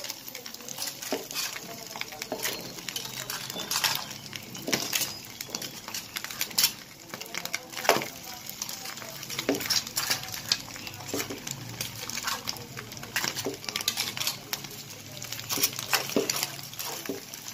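Metal tongs clicking and knocking against a frying pan as whole crabs are set into bubbling butter and salted-egg sauce, with irregular clatters throughout and the loudest knock about eight seconds in. The sauce sizzles and bubbles faintly underneath.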